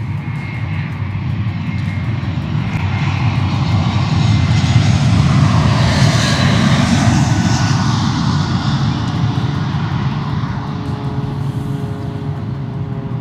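Airplane passing low overhead: a roar that builds to its loudest about halfway through and then slowly fades.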